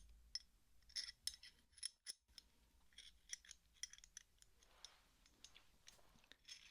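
Metal open-end wrench worked close to the microphone: irregular light metallic clicks and clinks, with a brief pause about two seconds in.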